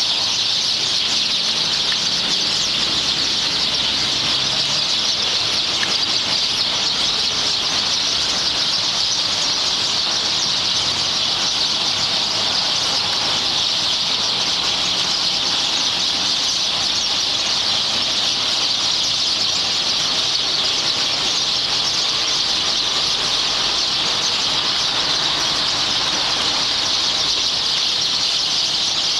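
A dense, continuous chorus of chirping from a large flock of several hundred small songbirds crowded into roadside trees, a massed high-pitched chatter with no single call standing out.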